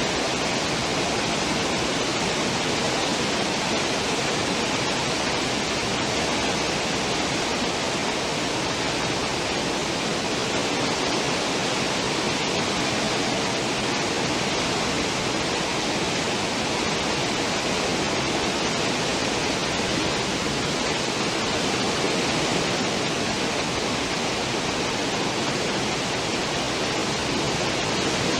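Cruise ship's stern wake: churned water and foam rushing steadily behind the hull, an even, unbroken roar of water.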